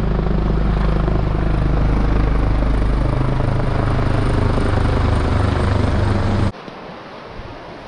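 Helicopter flying low overhead, its rotor blades beating loudly and deeply. The beat shifts in pitch about three seconds in as it passes, then cuts off abruptly at about six and a half seconds, leaving a much quieter rushing noise.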